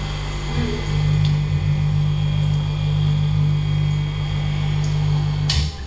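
Wall-mounted swimsuit spin dryer running with a steady low hum while its lid is held down, spinning the water out of swim shorts. The hum gets louder about a second in as it comes up to speed, then cuts off near the end with a short burst of noise as the dryer stops automatically.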